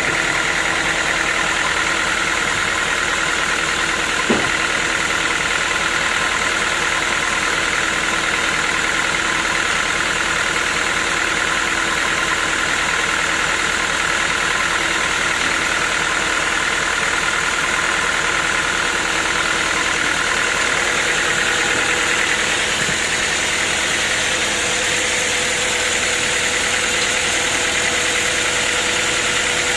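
Sawmill machinery running steadily: a continuous engine-like hum with a steady high whine over it, and one short knock about four seconds in.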